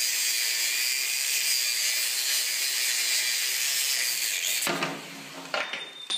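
Angle grinder with a cutoff wheel cutting through a steel rod, a steady high, hissing grind of wheel on metal with the motor's hum under it. It stops about three-quarters of the way through, followed by a few light knocks.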